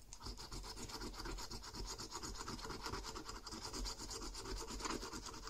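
A coin scraping the scratch-off coating of a €1 All Cash scratchcard, in quick, rapid back-and-forth strokes on a cardboard surface, rubbing the latex off the play area.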